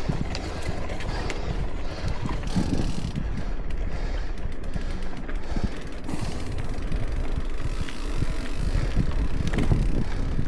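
Mountain bike rolling downhill on a paved road: wind buffets the microphone in a steady low rumble, with the tyres' hum and scattered clicks and rattles from the bike's drivetrain and frame.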